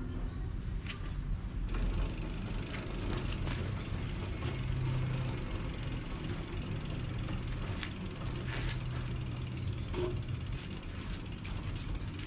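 Rear wheel of an upside-down mountain bike spinning after being refitted, its freehub pawls ratcheting in a fast, steady run of ticks, with a few louder clicks.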